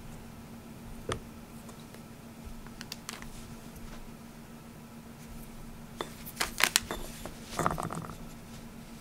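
Spoon scooping whipped cream and warabi mochi out of a clear plastic dessert cup: a click about a second in, a few light taps around three seconds, then a cluster of louder clicks and scrapes against the cup between six and eight seconds in. A faint steady low hum runs underneath.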